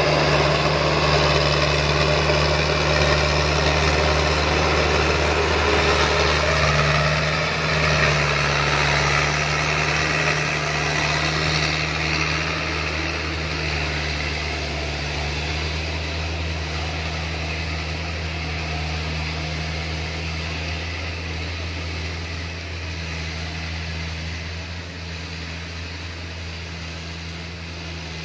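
Loaded Dongfeng Trường Giang truck's diesel engine running steadily under load as it hauls logs up a dirt track, with a low drone. It grows gradually quieter as the truck pulls away.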